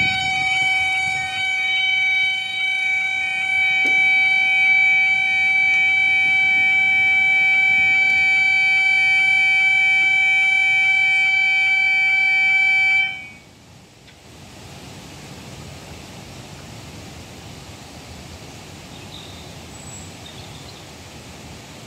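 Railway level crossing audible warning alarm sounding, a steady high tone with a rapid repeating warble over it; the crossing's alarm is described as faulty. It cuts off suddenly about thirteen seconds in, leaving a faint even outdoor background.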